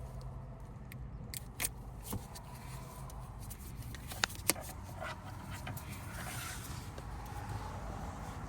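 A few sharp clicks and light scrapes of hard plastic being handled as the FitDVR power adapter is fitted to the windshield, the loudest two clicks close together about four seconds in, over a steady low hum.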